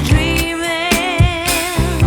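Background music: a soul/R&B-style song with a sung vocal line held with vibrato over a steady drum beat.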